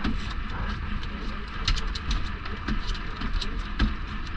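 Steady low rumble of a fishing boat's engine with wind and water noise, and irregular sharp clicks and knocks scattered through it, the loudest a little before four seconds in.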